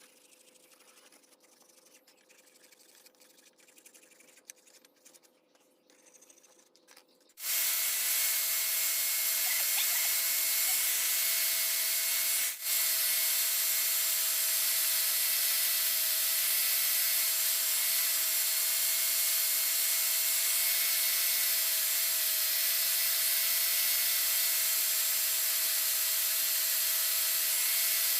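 An electric abrasive power tool starts suddenly about seven seconds in and then runs steadily with a constant hiss and a steady hum, dropping out for an instant a few seconds after it starts.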